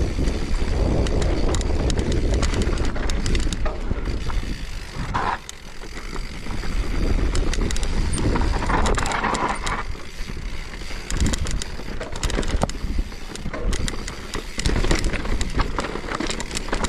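Mountain bike riding over a rough dirt trail: tyres rolling over dirt and gravel, the bike rattling and clicking over bumps, with wind rumbling on the microphone.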